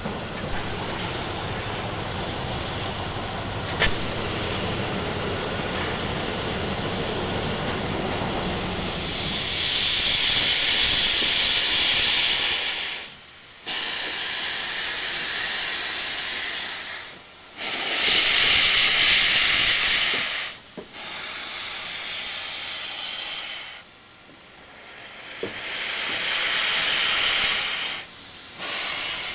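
Soo Line 2719's steam hissing, first as a steady hiss, then as about six loud hissing blasts of steam jetting from around its cylinders, each a couple of seconds long and cutting off sharply.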